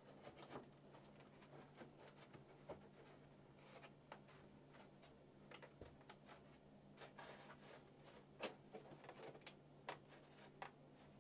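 Near silence: a low steady hum with faint scattered clicks and rubbing from parts being handled and fitted, one sharper click about eight and a half seconds in.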